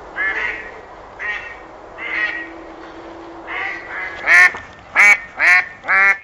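Goose honking: a series of about nine calls, spaced irregularly at first, then four louder calls about twice a second near the end.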